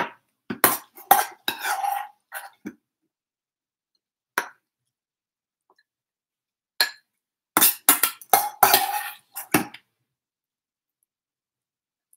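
Metal spoon clinking and scraping against a stainless steel bowl and a small serving bowl while food is scooped and spooned out. The clinks come in a quick run at the start and again a few seconds before the end, with single taps in between.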